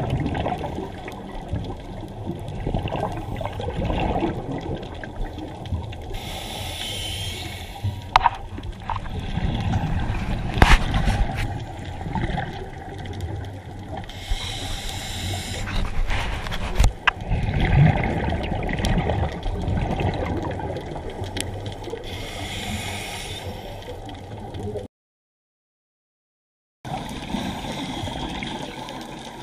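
Underwater sound of a scuba dive heard through a camera housing: a low, rumbling wash of water with a diver breathing on an Oceanic regulator, where a hissy gush of exhaled bubbles comes about every eight seconds. There are a few sharp knocks, and the sound drops out to silence for about two seconds near the end.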